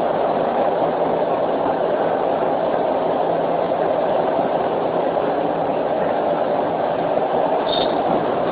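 Steady running noise of a moving train heard from inside a carriage, with a brief high squeak near the end.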